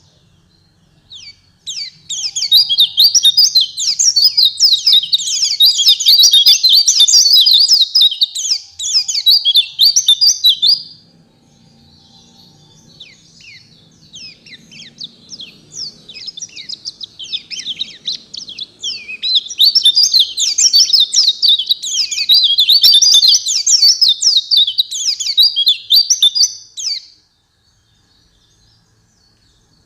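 White-eye (pleci) song: two long runs of rapid, high chattering notes, each lasting about nine seconds, with a few scattered notes in the pause between them.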